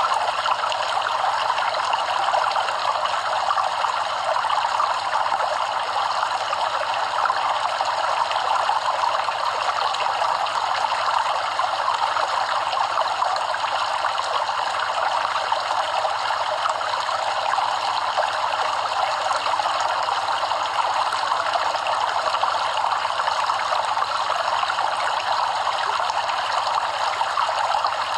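Stream of water running over rocks, a steady trickling and splashing rush.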